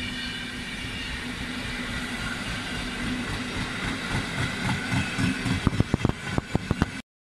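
PKP Intercity passenger coaches rolling past: a steady rumble with high ringing tones from the wheels. In the second half the wheels clatter over rail joints in a run of sharp knocks, loudest as the last coach's bogies pass. The sound cuts off suddenly near the end.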